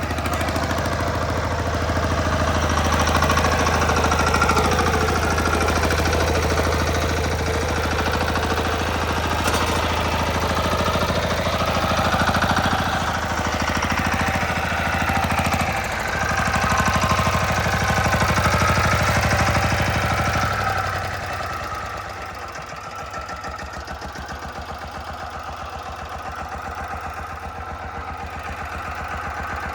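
Deutz F1L 210 single-cylinder air-cooled diesel on a hand-built mini bulldozer running with a steady low drone. About 21 seconds in it drops quieter and settles into a rapid, even ticking idle.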